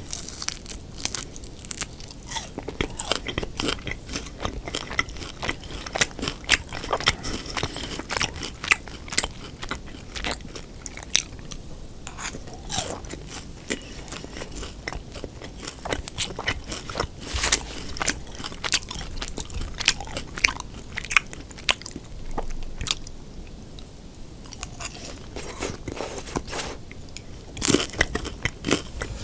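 Close-miked eating sounds: many sharp crunching bites and chewing of crispy battered sweet and sour pork (tangsuyuk).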